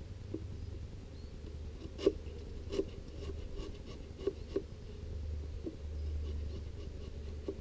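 A metal hive tool scraping and clicking against the wooden frame lugs of a beehive, scraping off propolis so a plastic frame spacer will fit. It makes a handful of short scrapes and taps, the sharpest about two seconds in, over a low steady hum.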